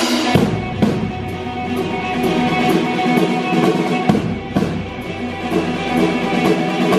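Live rock band playing: electric guitar over a steady drum-kit beat, with drum and cymbal hits about twice a second.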